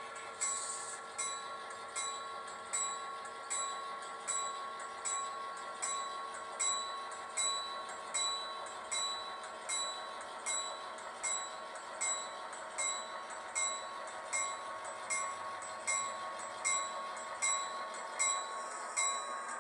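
Model railroad sound: a bell dinging at an even pace, about three strikes every two seconds, over a steady multi-tone hum as the model diesel locomotives roll past.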